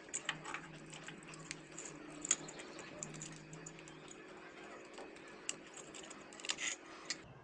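Small sharp metallic clicks and scrapes as an electric iron's heating element is twisted and worked loose from its aluminium sole plate, one louder click about two seconds in and a quick run of clicks near the end.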